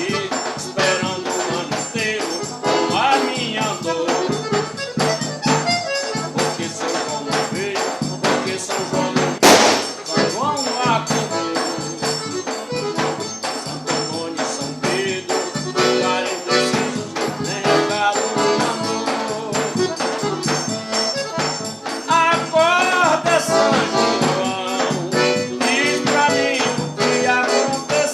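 Instrumental break of a Brazilian São João (festa junina) song: sustained melody instruments over a steady beat with shaker percussion.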